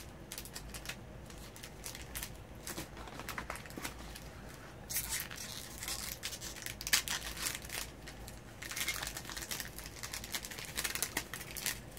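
Foil trading-card booster pack wrapper crinkling and tearing as it is opened by hand, with cards handled in between; the crackling comes in bursts, strongest about five seconds in and again near the end.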